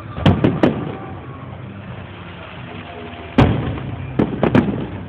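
Aerial fireworks shells bursting: three quick bangs in the first second, the loudest bang about three and a half seconds in, then three more in quick succession.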